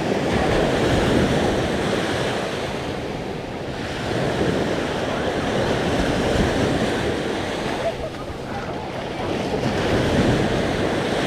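Sea waves breaking and washing up on the beach, swelling and easing every few seconds, with wind buffeting the microphone.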